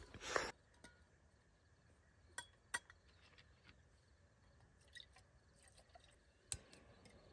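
Near silence broken by a few light clicks and clinks, spread out, the sharpest one near the end: camping cookware being handled to brew coffee.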